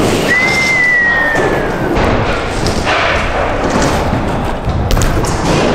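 BMX bike riding on wooden skatepark ramps: tyres rolling, with thudding landings. A thin squeak starts near the beginning and falls slowly in pitch over about a second and a half. Sharp knocks come about two and five seconds in.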